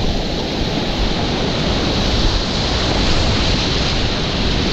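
Steady, loud rush of whitewater rapids on the Upper Youghiogheny River.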